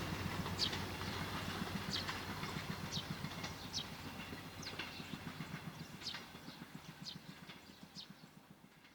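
A train pulling away from a level crossing, its wheels clattering over the rails in a fast, steady rhythm as the rumble fades away, with sharp high clicks every half second to a second.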